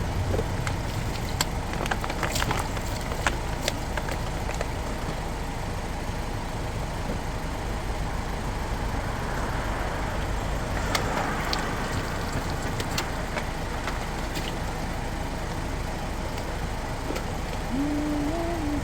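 Car handbrake lever being pulled up and let down, its ratchet clicking in two bursts as the rear brake cable is worked, over a steady low rumble.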